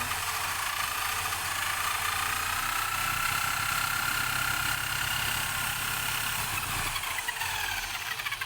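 Electric power-tool motor spinning a homemade lathe chuck with a steady whine and hum. Near the end its pitch sinks as it slows down.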